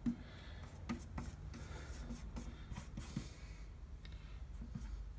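Fingertip rubbing aluminum polish across a bare aluminum snowmobile tunnel: faint rubbing strokes with scattered light, irregular ticks.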